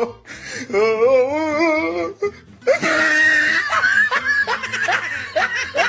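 Laughter with music: a wavering, trilling laugh about a second in, then a dense run of short, rising laugh bursts from about three seconds in.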